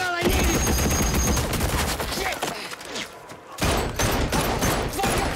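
Heavy, rapid machine-gun and rifle fire with many overlapping shots. It runs for about three seconds, dips briefly, and starts again a little after three and a half seconds in.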